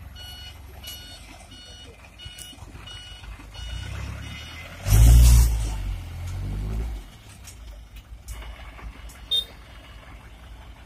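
Dump truck's reversing beeper sounding about twice a second as it backs up. About five seconds in, the diesel engine revs hard for two seconds as the truck climbs onto the soft heap of fill soil, then settles back to a low run.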